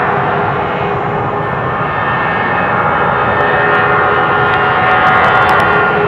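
Airbus A319's twin jet engines at takeoff thrust as the airliner accelerates down the runway: a loud, steady rushing noise with several held tones in it.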